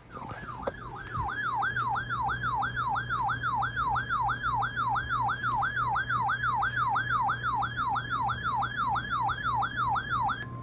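Weather radio receiver's alert siren, set off by the National Weather Service's warning tone: an electronic tone sweeping up and down about two and a half times a second, starting about a second in.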